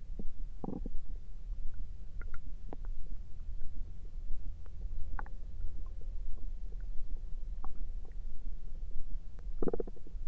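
Human stomach gurgling over a steady low rumble, with a short gurgle about a second in and another near the end, and small scattered clicks in between.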